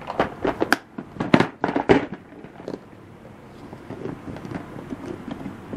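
Clear plastic compartment tackle box full of plastic fishing bobbers being shut and handled: a quick run of sharp plastic clicks and clacks over the first two seconds, then fainter knocks.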